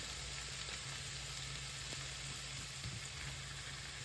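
Food sizzling steadily in a hot frying pan, a stir-fry with bean sprouts just going in, over a steady low hum.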